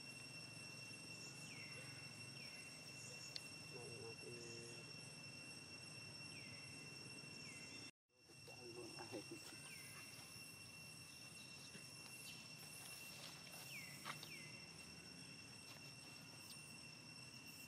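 Faint outdoor ambience of insects: a steady, high, shrill drone with short falling chirps now and then. There is a brief low call about four seconds in and another just after the sound drops out for a moment about midway.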